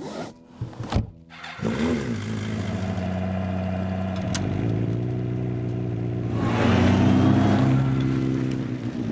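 A few sharp clanks of metal handling, then a motorcycle engine starts and runs at a steady idle, and revs up to pull away about six seconds in before easing back.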